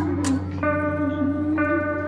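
Background music: held instrumental notes over a steady bass tone, with new notes coming in about half a second in and again near the end.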